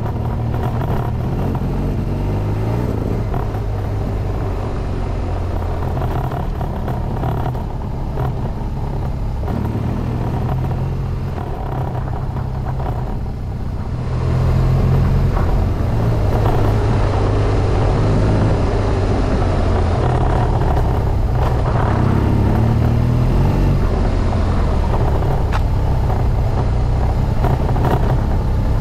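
Adventure motorcycle engine running under way on a gravel track, with wind and tyre noise, getting louder about halfway through.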